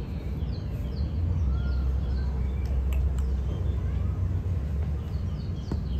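A low, steady rumble from the sky, a distant overhead noise such as a passing aircraft or far-off thunder, sets in about a second and a half in and carries on. Small birds chirp over it.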